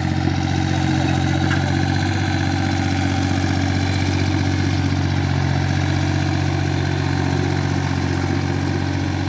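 Small backhoe's engine running steadily at a constant speed.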